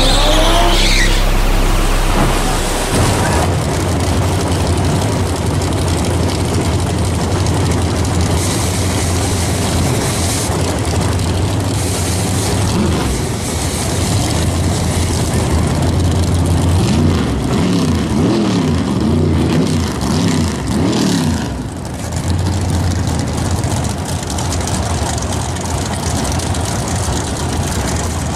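Drag race cars idling at the starting line, their engines rumbling steadily. A few revs rise and fall about two-thirds of the way through.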